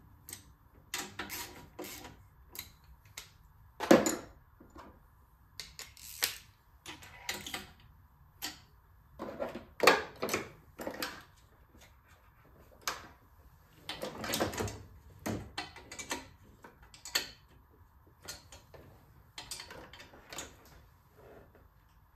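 Ratchet wrench clicking in short quick runs, mixed with scattered metal clinks and knocks as tools and parts touch. The loudest are single knocks about four seconds in and again near the middle.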